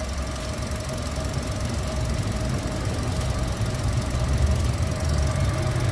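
Toyota 1NR-FE four-cylinder engine running with a steady rumble and a steady high-pitched whine over it. This is the abnormal engine noise under diagnosis.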